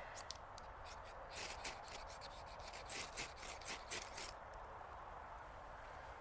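Quick, sharp scraping strokes of a striker on a ferro rod, throwing sparks onto a nest of dryer lint to start a fire. The strokes come in runs, a few about a second in and a fast cluster from about three to four seconds in.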